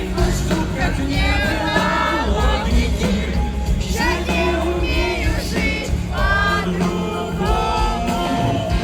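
Live pop concert music: singing over a band with a heavy, steady bass.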